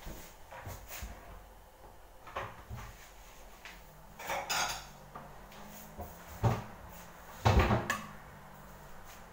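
Kitchen clatter: a string of separate knocks and clunks as cookware and cupboards are handled, the loudest about six and a half and seven and a half seconds in.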